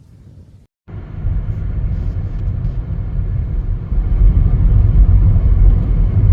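Low, steady rumble of a car driving, starting abruptly about a second in and growing louder partway through.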